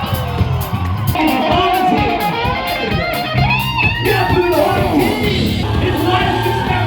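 A live band playing, with electric guitar to the fore.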